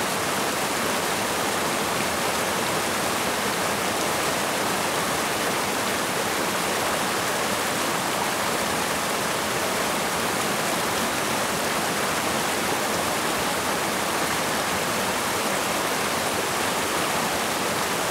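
Mountain stream rushing over boulders in small cascades: a steady, unbroken rush of splashing water.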